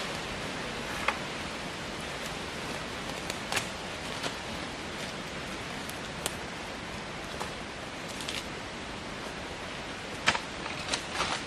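Steady outdoor hiss with scattered sharp twig snaps and leaf crackles, several close together near the end, from ground litter being disturbed.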